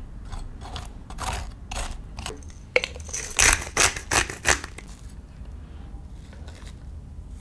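A metal spoon scraping the seeds and stringy pulp out of a raw halved spaghetti squash in short repeated strokes, with a sharp click a little before the middle and a run of four or five louder rasping strokes just after it. Near the end a fork rakes the roasted squash flesh into strands, more faintly.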